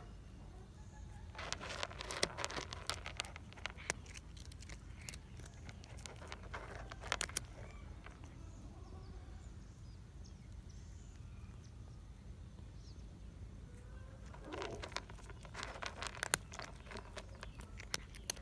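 A cat crunching dry kibble, in quick runs of crisp crunches in the first few seconds and again near the end, with a quieter pause between. A steady low hum runs underneath.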